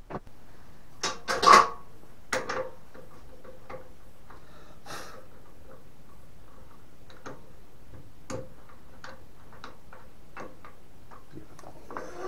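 Green cherry log blank being handled and seated in the metal scroll chuck of a wood lathe: a few loud knocks about a second in, then a run of light clicks roughly every half to three-quarters of a second.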